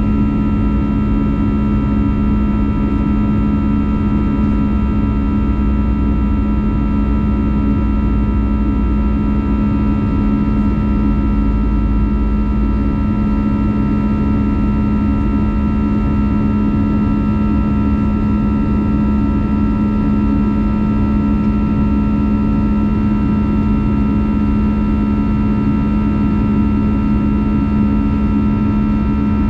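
Airbus A320's jet engines and airflow heard inside the cabin in flight: a loud, steady drone with a constant low hum and a higher whine over a rushing noise.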